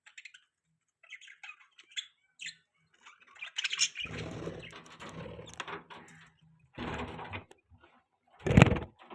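Budgerigars chirping in short, quick calls, joined by a long stretch of rustling noise about four seconds in. A loud brief thump comes near the end.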